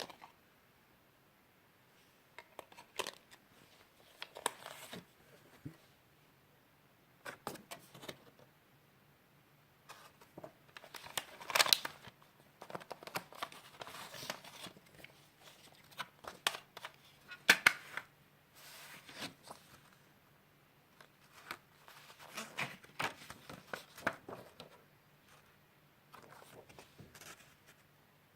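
A CD album and its plastic packaging being handled: crinkling and tearing in irregular bursts, with sharp clicks, the loudest a little before halfway and a little past the middle.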